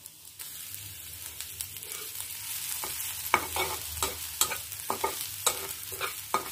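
Minced garlic sizzling in hot soybean oil in a pan. From about three seconds in, a metal spatula stirs it, scraping and knocking against the pan in many quick clicks.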